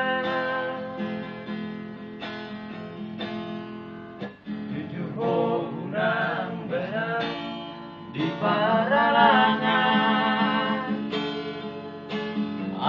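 Acoustic guitar strummed with men singing along. The singing grows louder about eight seconds in.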